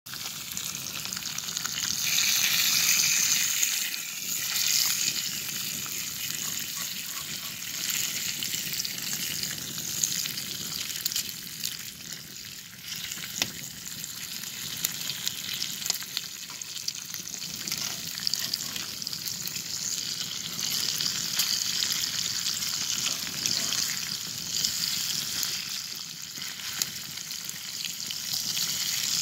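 Bacon sizzling steadily in a cast-iron skillet over a wood fire, with many small pops and crackles; the sizzle is loudest about two to four seconds in.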